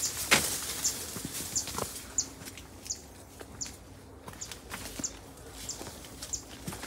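Footsteps on a dry dirt path and reed stems and leaves rustling as someone pushes through a cane thicket, with irregular crackles, the loudest just after the start. Over it a short high chirp repeats about every two-thirds of a second.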